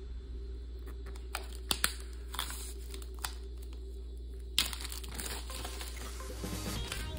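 Clear plastic shrink-wrap crinkling and crackling as it is peeled off an Apple Magic Keyboard box: scattered sharp crackles at first, then a denser crackly rustle from about halfway through.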